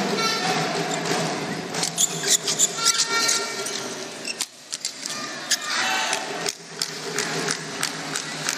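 Badminton rackets striking the shuttlecock in a fast doubles rally, a quick series of sharp hits, with short squeaks from the court and steady crowd noise in the hall.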